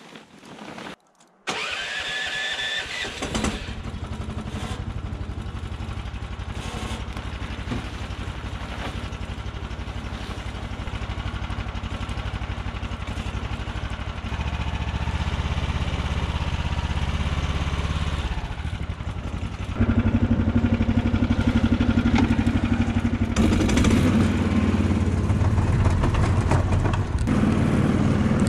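A motor vehicle's engine starts about a second and a half in and then runs steadily, getting louder in steps near the middle and again about two-thirds of the way through.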